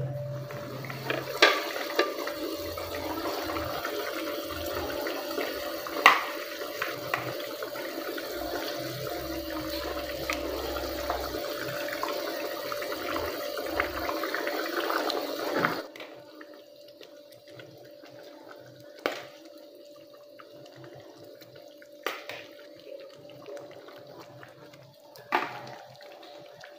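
Water running steadily from a tap, shutting off about sixteen seconds in, followed by a few light knocks.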